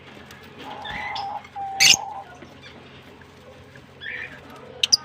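Pet lovebirds chirping, with a loud shrill call about two seconds in and two short sharp clicks near the end.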